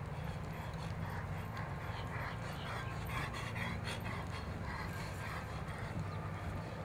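An animal panting in a quick, even rhythm over a steady low hum, clearest in the middle of the stretch.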